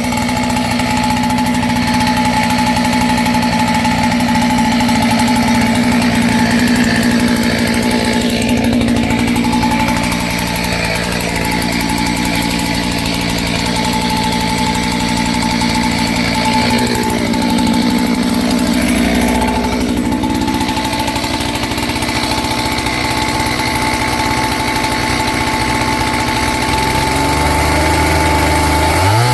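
Two-stroke engine of a kit-built clone chainsaw running steadily at high speed, then revving up near the end.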